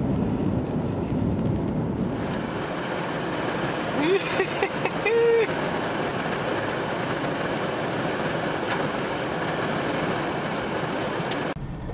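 Steady road noise inside a moving vehicle, tyres rolling on a gravel road, with a brief voice-like sound about four to five seconds in.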